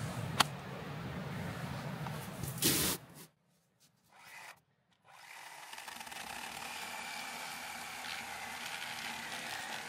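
Cordless battery chainsaw running and cutting into a wooden beam. The sound breaks off about three seconds in and resumes as a steady run with a faint whine a couple of seconds later.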